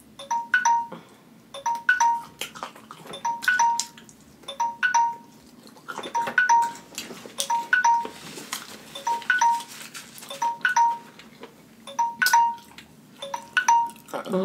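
Smartphone timer alarm ringing with a short chime-like tune that repeats about every second and a half, signalling that the ten-minute challenge time is up.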